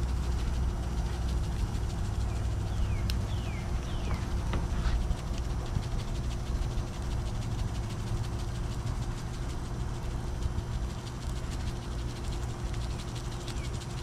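A steady low rumble with a faint steady hum, and a few short falling bird chirps about three to five seconds in and again near the end.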